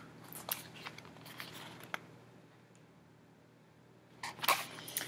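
Faint rustles and light taps of a paperback book being handled and turned toward the camera, falling almost silent in the middle, with a louder paper rustle about four and a half seconds in.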